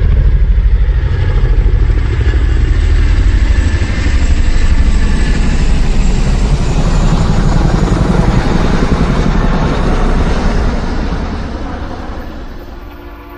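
A loud engine-powered vehicle running with a rapid, even pulsing and heavy low rumble, fading away over the last couple of seconds.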